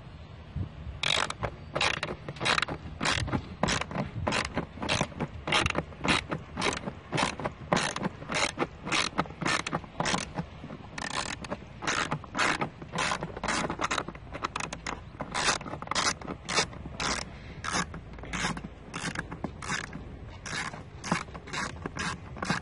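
Ratchet handle with a T25 Torx bit clicking in quick repeated bursts, about two a second, starting about a second in, as it backs out a long bolt of the air filter housing cover.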